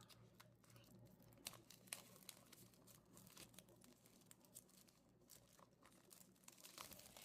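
Faint crinkling and crackling of plastic shrink wrap being torn and peeled off a small cardboard model box, in scattered irregular clicks.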